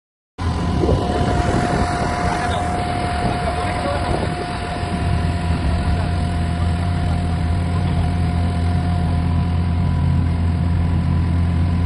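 An engine running with a steady low drone that cuts in abruptly less than a second in, with a thin steady whine over it for the first few seconds.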